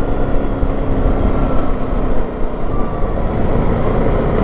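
Yamaha Grizzly 700 ATV's single-cylinder four-stroke engine running steadily while the machine is ridden along a trail.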